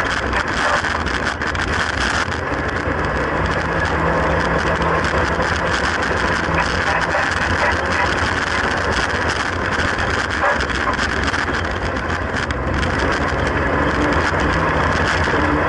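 Classic Mini's A-series four-cylinder engine running under racing load, heard from inside the stripped cabin, its pitch shifting as the revs rise and fall. A dense wash of tyre and loose-surface noise with many small clicks and rattles runs over it.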